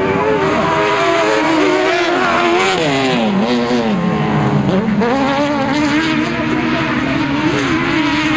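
Autocross cars' engines revving hard on a dirt track, several at once, their pitch rising and falling with throttle and gear changes. The pitch sinks to its lowest about four and a half seconds in, then climbs steeply again.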